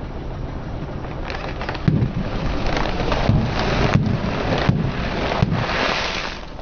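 Crackling and crunching as a car tyre rolls over and crushes brittle objects, in several bursts over a low rumble.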